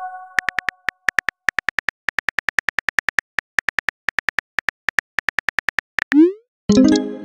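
Phone keyboard tap clicks, several a second, as a text message is typed on a messaging-app screen. The tail of a chime fades out at the start. About six seconds in, a short rising swoosh of a message being sent is followed by a chime.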